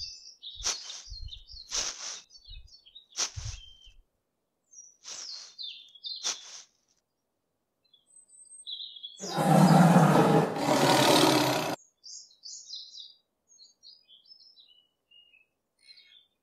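Lion roaring loudly in two parts about nine to twelve seconds in, over birds chirping throughout. Several brief harsh sounds come in the first seven seconds.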